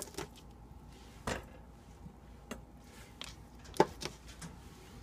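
Knife cutting oyster mushrooms into chunks on a paper plate: a handful of separate taps of the blade about a second apart, the sharpest a little before four seconds in.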